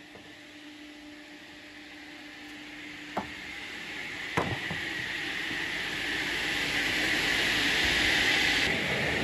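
Sawmill machinery running: a low steady hum at first, two sharp knocks about three and four and a half seconds in, then a mechanical noise that grows steadily louder.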